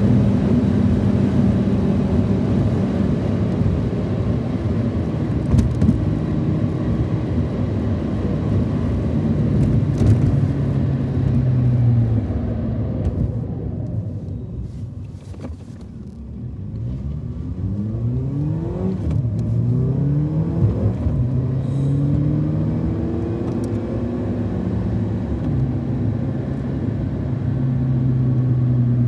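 Car engine and road noise heard from inside the cabin, running steadily at cruising speed. About halfway the car slows and the sound drops away to a low hum, then the engine pitch rises in several steps as the car accelerates through the gears and settles back to a steady drone.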